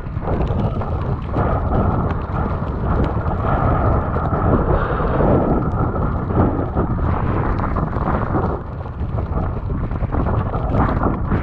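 Wind buffeting an action camera's microphone as it moves with a bicycle, a loud, uneven low rumble with a rough, crackling texture.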